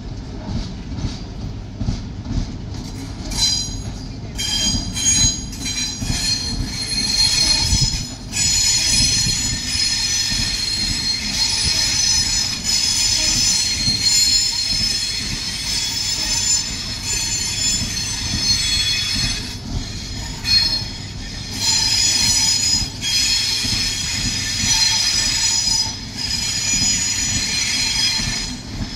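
NSW TrainLink OSCAR H set double-deck electric train rolling slowly past over a low rumble. From about three seconds in its wheels squeal in several high-pitched tones at once, breaking off briefly a few times.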